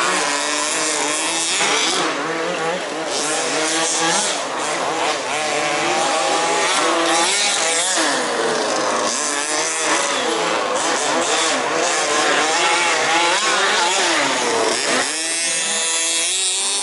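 Several 1/5-scale remote-control off-road cars' small two-stroke petrol engines, revving up and dropping back over and over as they race, their pitches overlapping.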